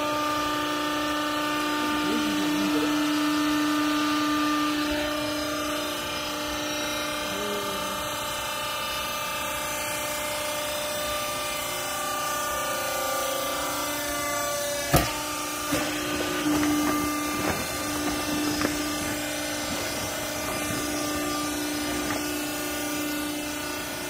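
Hydraulic power unit of a vertical clothing baling press running with a steady hum, driving the press platen. There is a single sharp knock about fifteen seconds in.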